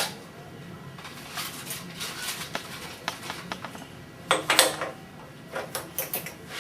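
Metal clicks and clatter from hands working the Burr King 760 belt grinder as its belt tensioner is loosened and the abrasive belt is taken off, with a louder clatter about four and a half seconds in.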